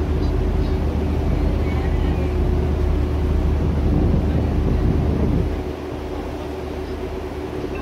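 A canal boat's engine running steadily, a low hum with a steady droning tone above it; the deeper rumble eases about five and a half seconds in.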